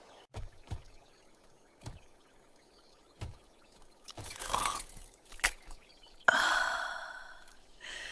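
Miniature cooking utensils being handled: a few light taps and knocks, a brief crunching scrape about four seconds in, then a sudden louder clink about six seconds in that rings and fades over the next two seconds.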